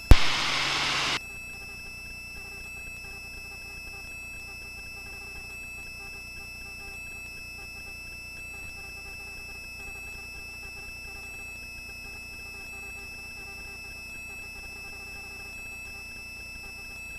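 Helicopter cabin noise heard through the intercom: a steady low hum with several constant high whining tones. It opens with about a second of loud hiss that cuts off abruptly.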